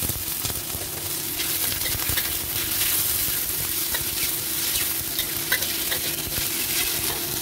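Boiled shimeji mushrooms sizzling as they are stir-fried in hot oil in a wok with sautéed shallots and garlic. A metal spatula stirs them, with occasional light scrapes and clicks against the wok.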